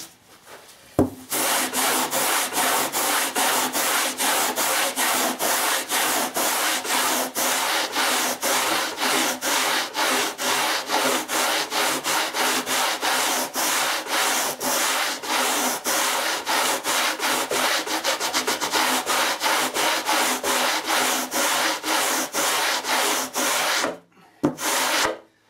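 Greenlight 'Rasputin' foiling rasp, a 24-inch steel rasp studded with coarse carbide grit, scraping a foam surfboard blank in quick, even back-and-forth strokes, about three a second, taking down the ridges left by bad planing. The strokes start about a second in, just after a short knock, and stop shortly before the end, with a couple of stray strokes after.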